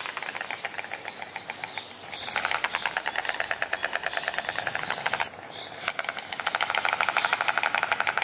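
White storks clattering their bills: a rapid run of clicks in long bouts, broken off briefly about two seconds in and again for about a second after the five-second mark.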